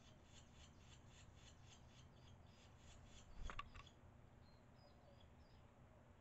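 Faint, rapid high chirping of barn swallow nestlings begging at the nest while an adult is with them, about five chirps a second. About three and a half seconds in there is a short burst of rustling and the chirping stops, leaving only a few thin, scattered high calls.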